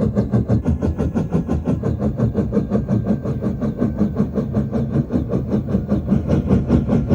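Isolated Huey helicopter rotor-blade thwop, a designed film sound effect with no engine or mechanical sounds in it, beating in a steady rhythm of about six chops a second.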